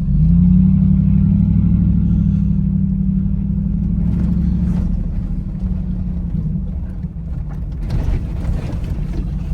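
Dodge Ram's 5.7-litre Hemi V8 heard from inside the cab, its note jumping up suddenly at the start as the throttle opens, held steady for several seconds, then easing off. A few short knocks and rattles come near the end.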